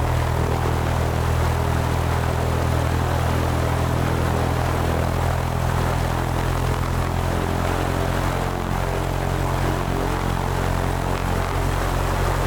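Propeller airplane engine running steadily, a constant low drone with a hum of rushing noise over it and no change in pitch.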